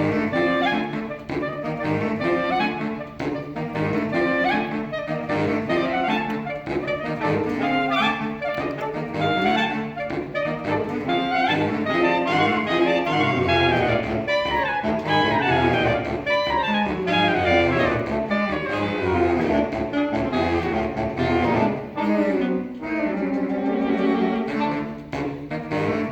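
Saxophone quartet playing live, with several busy, interweaving lines of quick-moving notes over a low part.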